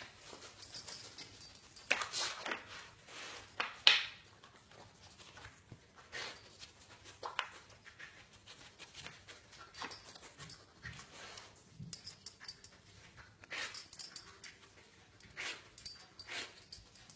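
Rottweiler puppy working a wooden puzzle feeder with its nose and paws: irregular clicks and clatters of the plastic covers and the board on a hard floor, mixed with sniffing. The loudest knock comes about four seconds in.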